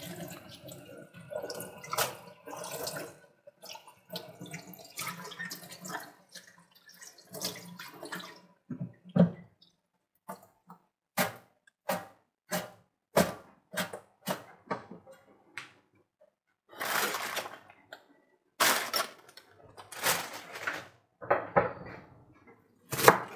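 Kitchen tap running into a stainless steel sink while a bunch of fresh dill is rinsed under it by hand. After about eight seconds the water noise ends and the wet dill is shaken out over the sink in a string of short splashing swishes.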